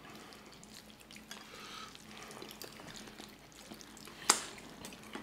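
Quiet close-miked eating sounds: soft wet mouth noises from chewing and finger-licking, with small scattered clicks and one sharp click about four seconds in.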